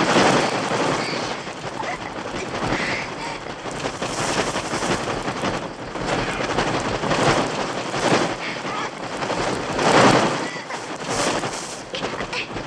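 Mixtur-Trautonium electronic bird-attack effects: a dense, noisy rush of massed wingbeats that swells and fades every couple of seconds, with short high bird-like squawks cutting through.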